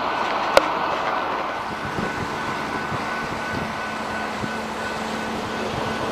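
Rail maintenance-of-way machines rolling through a grade crossing, their engines running steadily, with irregular low knocks from about two seconds in as the wheels pass over the crossing. A single sharp click comes about half a second in.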